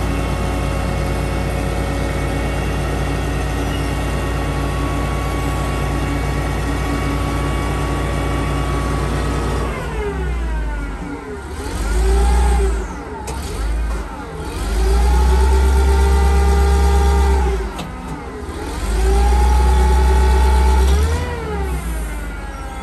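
Propane-fuelled Royal/Cat T300C forklift engine idling steadily, then revving up and holding three times before dropping back, while the lift hydraulics raise and tilt the forks.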